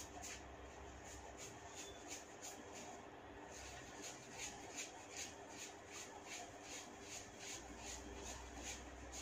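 Faint, quick run of small snaps, about two or three a second: hair being gripped and tugged at the roots during a hair-cracking head massage.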